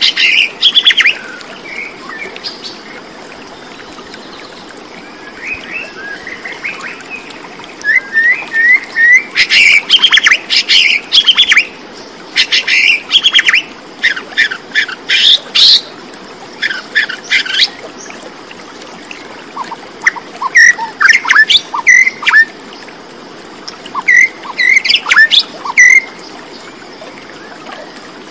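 Birds chirping and calling in quick bursts of short notes, with quieter gaps between the bursts.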